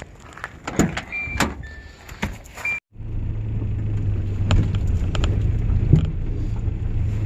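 A few knocks and clicks with short high beeps, then, after an abrupt cut about three seconds in, the steady low drone of a vehicle running, with the odd click over it.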